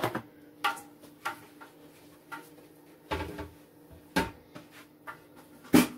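Scattered knocks and clatters of household items being handled and set down, about eight in all, the sharpest knock near the end the loudest.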